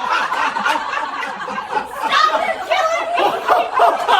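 People laughing and chuckling.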